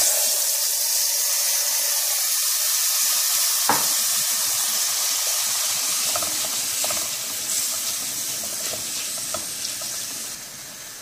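Basmati rice poured into hot oil and garlic in a metal pot, sizzling as it hits the oil. It is then stirred with a wooden spoon, and the sizzle slowly dies down over the last few seconds with faint scrapes of the spoon.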